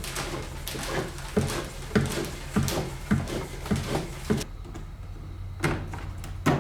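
PEX tubing being fed and pulled through holes drilled in wooden framing: scraping and rustling with a run of knocks about every half second, then two sharp clicks near the end.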